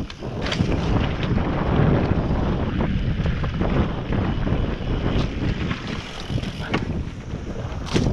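Wind buffeting the camera microphone over the rumble of a Specialized Enduro S-Works mountain bike's tyres on a dirt trail, with a few sharp clacks of the bike rattling over bumps.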